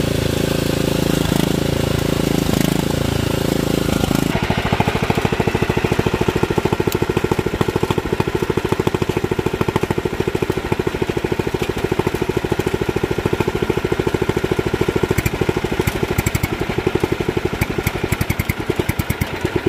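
Briggs & Stratton Intek 22 OHV V-twin lawn tractor engine running steadily. About four seconds in, the sound changes abruptly to a rapid, even pulsing run.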